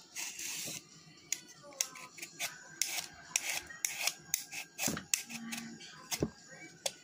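Fresh salad vegetables being snipped and crunched: a run of irregular, crisp, short clicks and snaps, with a longer crunch in the first second.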